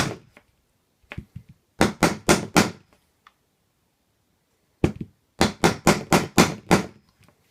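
Hammer striking a pin punch to drive a roll pin into an adjustable rifle stock's plunger assembly. A few light taps, a quick run of four strikes about two seconds in, a single strike near five seconds, then a fast run of about seven strikes.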